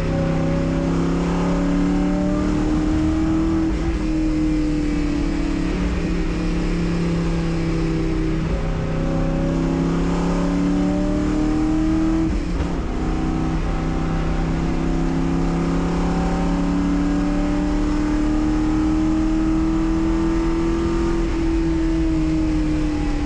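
Endurance race car's engine running hard on track, its note climbing slowly and breaking several times as the driver shifts or lifts for corners.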